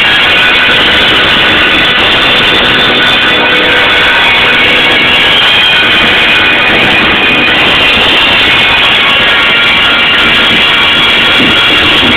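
Rock band playing live at full volume, electric guitar and drum kit, heard from among the audience.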